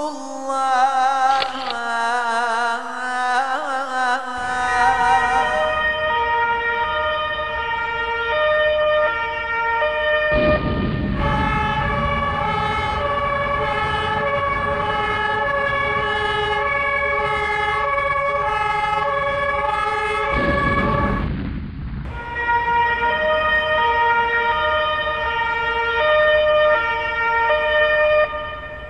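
The last melismatic phrase of an Islamic call to prayer (adhan) trails off, and about four seconds in emergency-vehicle sirens take over, alternating steadily between two pitches. A low rumbling noise runs under the sirens, heaviest from about ten seconds in.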